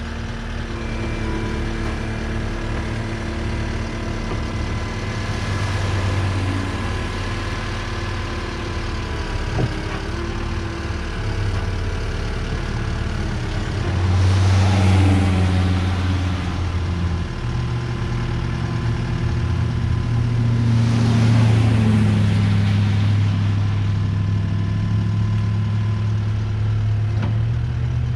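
Cat 259D compact track loader's diesel engine running under throttle as the machine drives off a gooseneck trailer. It gets louder twice, about halfway through and again about three quarters of the way in, with a few light knocks.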